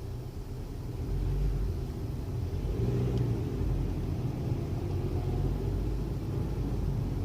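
Low rumble of road and engine noise inside a moving 2016 Honda Civic, growing louder about a second in and then holding steady.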